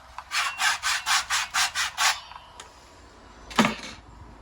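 Handsaw cutting through a wooden blind stop in quick, even strokes, about five a second, that stop about two seconds in. A single sharp knock follows near the end.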